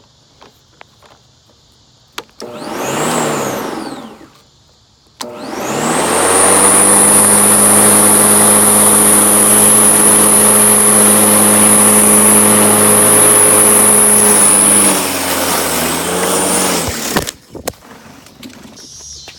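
Black+Decker 12-amp corded electric lawn mower's motor starting. It spins up briefly and winds down, then starts again after a click and runs with a loud, steady high whine for about nine seconds. The pitch then drops and the motor winds down, cutting off about seventeen seconds in.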